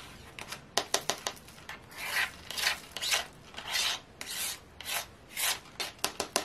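Resin diamond-painting drills rattling and sliding in a plastic drill tray as it is tilted and shaken. A few sharp clicks come first, then swishing strokes about two a second: the drills are sticking to the tray, a sign that it needs cleaning.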